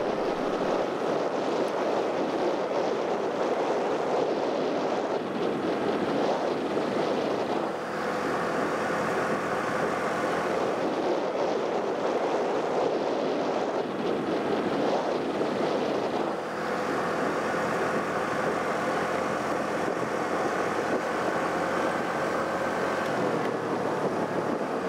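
Motorbike engine running at a steady cruise while riding along a road, a continuous drone that dips briefly twice.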